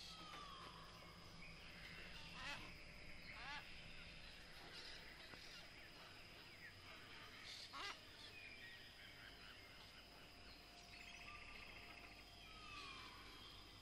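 Faint birdsong: birds calling, with a falling whistled note near the start and again near the end, and short chirps in between.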